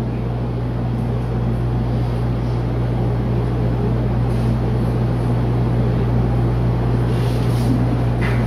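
Room air conditioner running: a steady low hum under an even rushing noise.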